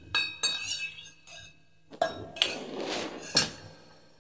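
Steel spoon clinking against a steel mixer-grinder jar and scraping as curd is spooned into it: a few ringing clinks in the first second, then a longer scrape about halfway through that ends in another clink.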